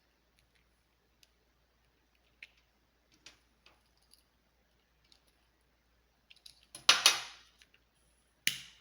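Scattered light clicks and taps of small objects being handled on a hard work surface, then two louder sudden clatters near the end, the first with a short fading rattle.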